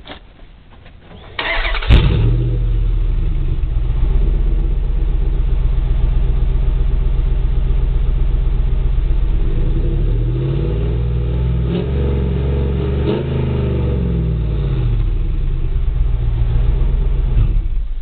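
Dodge Durango's 5.7-litre Hemi V8 with Flowmaster mufflers and an exhaust cutout being cranked by the starter and catching about two seconds in. It then idles and takes a few light revs a little past the middle, before being switched off near the end.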